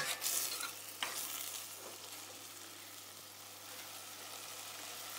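Chicken pieces with onion and spices sizzling in a stainless steel pot while a metal spoon stirs them, knocking against the pot right at the start and again about a second in. After that, a steady quiet sizzle.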